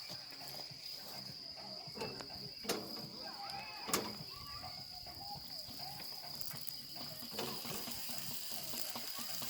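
Steady high insect trilling, like crickets, with two sharp clicks or knocks about three and four seconds in.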